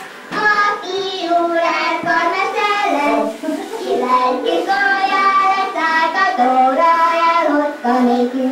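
Two voices singing a Hungarian song, played back from a 1972 reel-to-reel or cassette tape recording: steady sung phrases with held notes.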